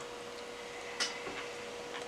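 Quiet room tone with a faint steady hum and one short click about a second in.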